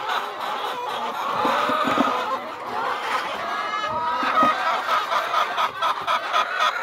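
Domestic hens clucking and chattering, several calls overlapping without a break, with a few light knocks.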